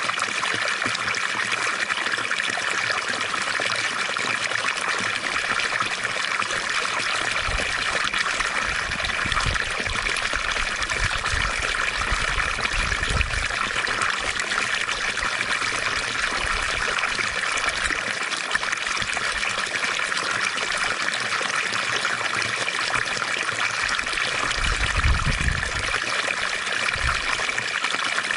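Water fountain splashing and trickling steadily, with occasional low rumbles of falling water.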